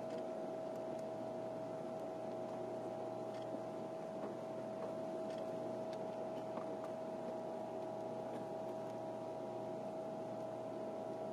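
Steady electrical hum of stationary electric trains' onboard equipment, holding one clear high note over a low drone, with a few faint scattered clicks.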